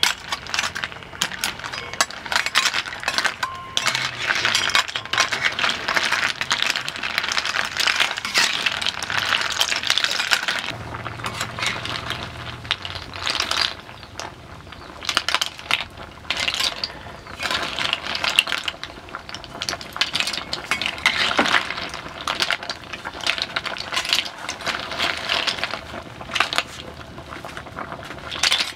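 Snail shells clattering and clinking against each other and against the metal wok as they are stirred and scooped out with a ladle. It is a continuous, irregular rattle of many small hard clicks.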